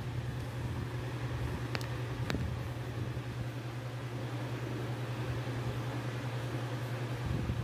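A steady low hum, with two light clicks about two seconds in.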